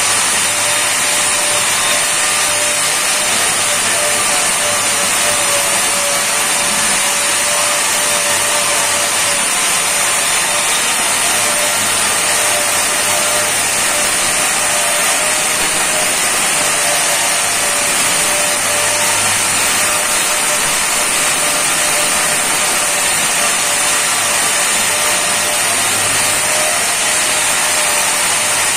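Handheld electric angle grinder running steadily under load, grinding and finishing the edge of a granite strip: a continuous grinding hiss with a steady whine, without pause.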